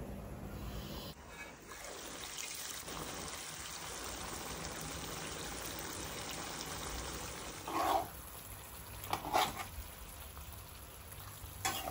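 Quail pieces sizzling and simmering in a pan of spiced sauce, a steady hiss. About 8 and 9 seconds in, two short louder sounds come as a spatula turns the pieces in the pan.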